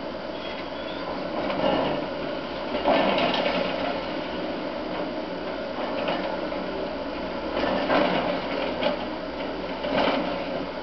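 Demolition of a concrete apartment block heard from a distance: a steady mechanical noise with several louder crunches of breaking and falling concrete, about two, three, eight and ten seconds in.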